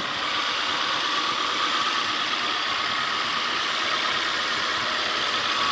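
Honda CR-V RD1's 2.0-litre four-cylinder engine idling steadily. It runs smooth, with the spark-plug misfire cured by new plugs.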